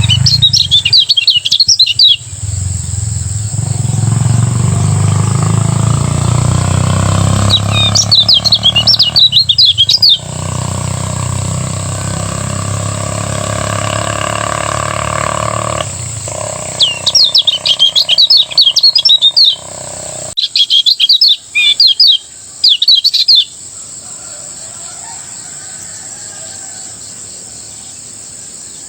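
Lemon-bellied white-eye (kecial kuning) singing its fast chattering 'ngejos' song. The high, rapid phrases come in four bursts of two to three seconds, with a steady hum in the gaps between them.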